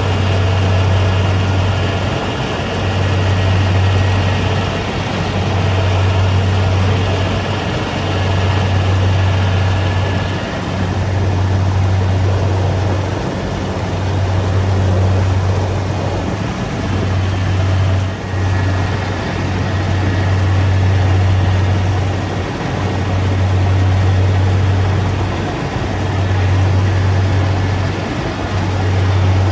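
Rice combine harvester running at work: a loud, steady engine drone with a low hum that swells and dips about every two seconds.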